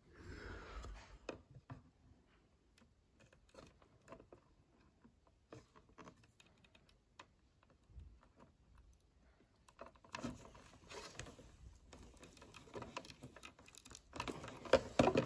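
Light scattered clicks and taps of a hand crimping tool and plastic butt-splice connectors as the connectors are crimped onto lamp cord wires, getting busier and louder in the last few seconds.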